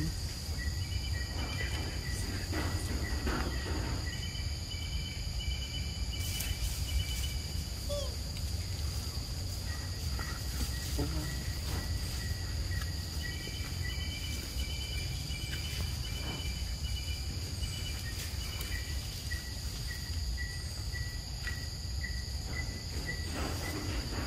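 Forest insects buzzing in a steady high-pitched drone, with strings of quick short chirps that come and go over a low background rumble and a few faint clicks.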